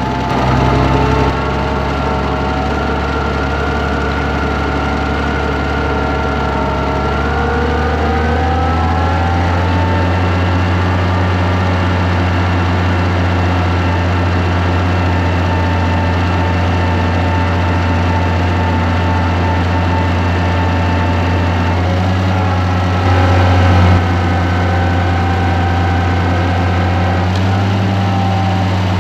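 Engine running steadily, its pitch rising between about seven and nine seconds in as it speeds up, then holding; briefly louder around twenty-three seconds in.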